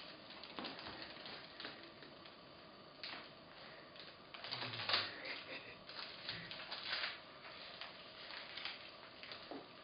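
Faint crinkling of plastic sweet wrappers and light clicks on a tile floor as a toddler picks up and handles wrapped sweets, with denser rustling about five and seven seconds in.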